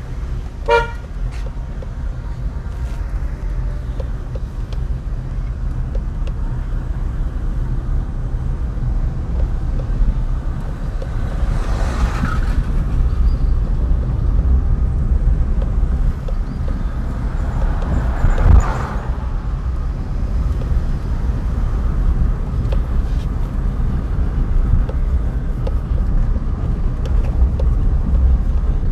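Car driving slowly on a rough rural road, heard from inside the cabin: a steady low rumble of engine and tyres. A short high tone sounds just after the start. Two brief louder rushes of noise come about a third and two-thirds of the way through, the second with a sharp low thump.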